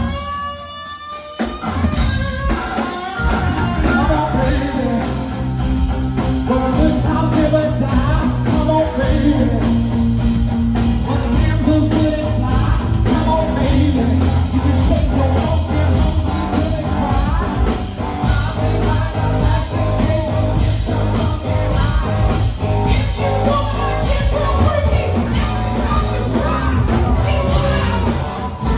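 Live rock-soul band playing: a female lead vocalist singing into a handheld microphone over electric guitar, bass guitar and drum kit. The first second or so is thinner with a rising glide, then the bass and drums come in and the full band plays on.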